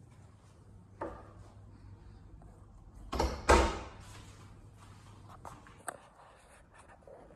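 A sharp knock, then a loud double thud about three seconds in, and a few light clicks later, over a steady low hum.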